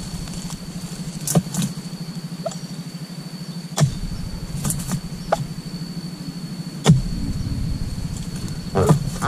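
An oil palm dodos, a steel chisel blade on a bamboo pole, being thrust into the base of oil palm fronds: several sharp chops a second or few apart, the loudest about a second and a half, four, seven and nine seconds in. Under them runs a steady low hum.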